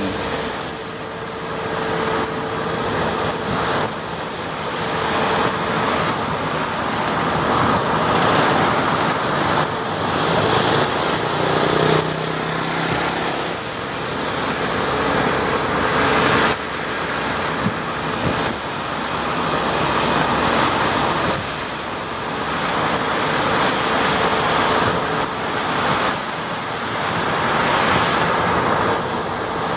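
Road noise of a moving car heard from inside: a continuous rush of tyres and wind with a faint engine hum, swelling and easing every few seconds.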